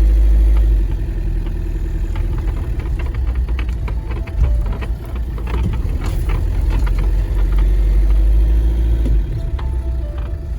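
Steady low rumble of a vehicle running, with a string of short clicks and knocks in the middle.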